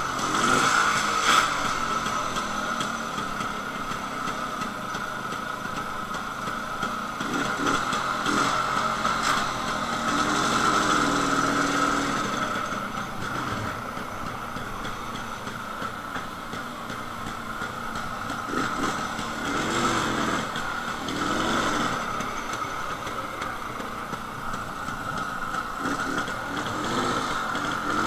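Jawa 250/353's single-cylinder two-stroke engine running, heard from the rider's helmet. Its revs rise and fall several times.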